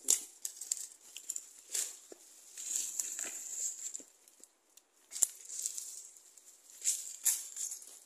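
Footsteps crunching through dry leaf litter, with leafy undergrowth brushing and rustling past, in irregular bursts. There is a sharp click about five seconds in.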